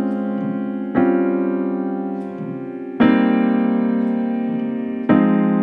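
Piano playing left-hand rootless jazz voicings in A-flat, one chord after another through a diatonic chord cycle. Three new chords are struck, about a second, three seconds and five seconds in, and each is held and left to ring and fade until the next.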